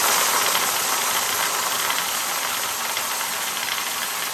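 Compressed-air blow gun blasting air into a plastic bottle, a loud steady hiss as the air whirls the small raffle balls around inside.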